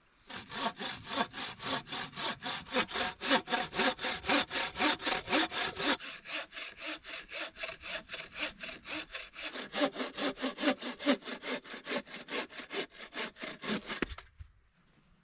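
Hand saw cutting through wood in quick, even strokes, about four a second, stopping abruptly about a second before the end.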